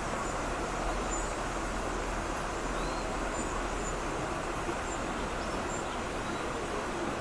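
River water rushing steadily over a stony bed, with a few faint, short high bird chirps scattered through it.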